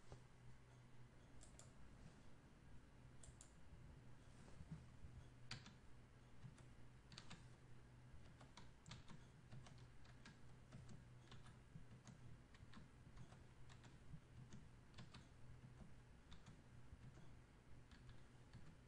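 Faint keystrokes on a computer keyboard: scattered taps as numbers are typed and entered, a few to a second with short gaps, over a steady low hum.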